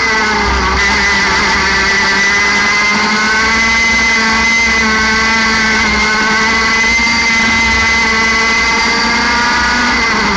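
60cc two-stroke kart engine running at high revs, held near full throttle at about 13,000–14,500 rpm. Its pitch stays steady, with a slight dip about half a second in.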